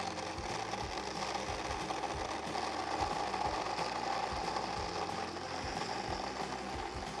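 Countertop electric blender running steadily, blending yogurt, banana, walnuts and ice cubes into a thick lassi.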